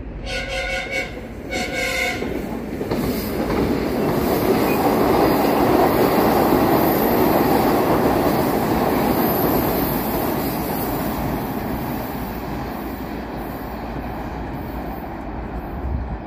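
Two short horn blasts from an approaching metro train, then the train running past on the open track: its rumble grows to its loudest after about five seconds and slowly fades as it moves away.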